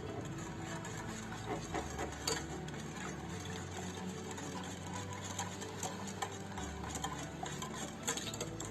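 A spoon stirring a thick yogurt-and-tahini sauce in a bowl, with light, irregular clicks and taps of the spoon against the bowl as chicken broth is mixed in.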